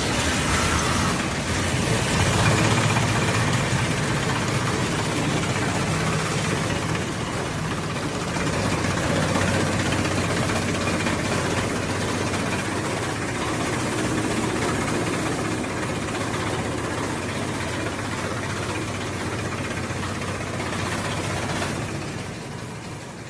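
Automatic tire block cutting machine running, a steady mechanical drone that eases off near the end.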